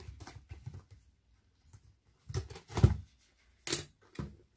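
Hands handling and opening a cardboard earbuds box: a series of short scrapes, taps and rustles, loudest a little past the middle, with two sharp clicks near the end.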